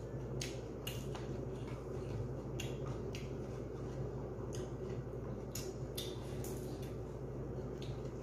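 A person chewing food: wet smacking and clicking mouth sounds, short and irregular, over a steady low hum.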